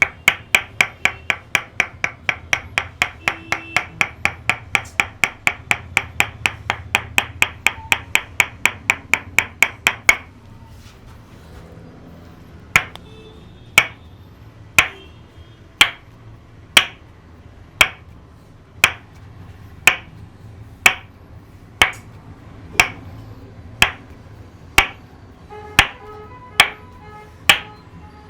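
Tok Sen wooden mallet tapping a wooden wedge in an even rhythm, each knock short and ringing: a fast run of about four or five strikes a second for about ten seconds, then after a short pause a slower beat of about one strike a second.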